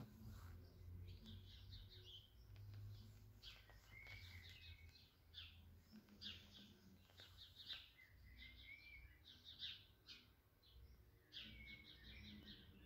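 Birds chirping faintly, with many short calls and a few brief whistled phrases throughout, over a faint low rumble.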